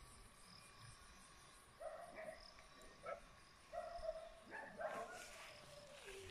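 A dog barking faintly, four or so short barks spread a second or so apart.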